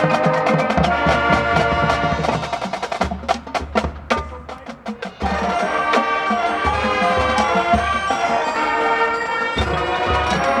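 High school marching band playing its field show, with horns and drums. About two and a half seconds in the band drops to a quieter passage of sharp, quick percussion strikes, then the full band comes back in with sustained chords at about five seconds.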